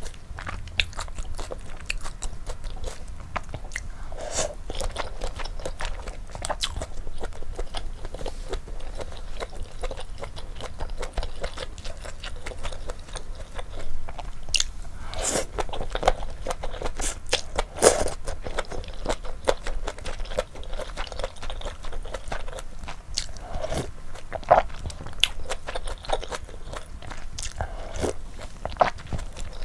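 Close-miked eating sounds from a bowl of malatang: steady chewing and biting with wet mouth clicks and crunchy bites, and a few louder bites or slurps now and then.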